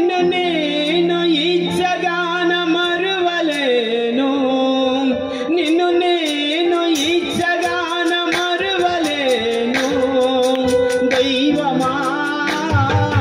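A man singing a Telugu Christian worship song into a microphone over a PA, with a wavering melody and long held notes over steady instrumental accompaniment.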